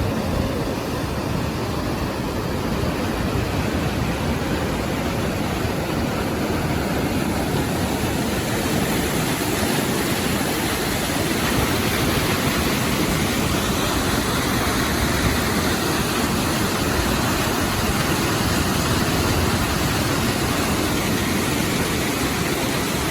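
Steady, loud rush of water pouring through or below a dam, an even noise with no changes.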